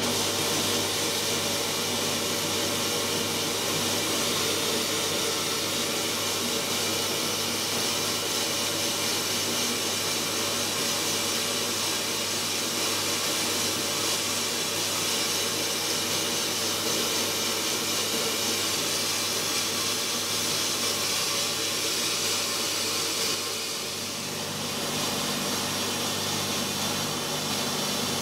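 Sandblaster nozzle hissing steadily as it blasts abrasive onto York stone through a rubber resist stencil, deep-engraving the stone, with a steady low hum underneath. The hiss dips briefly about three-quarters of the way through, then carries on.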